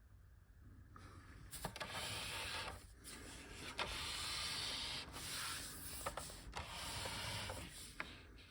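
Handling noise: several stretches of rubbing and scraping, each about a second long, with a few light clicks between them.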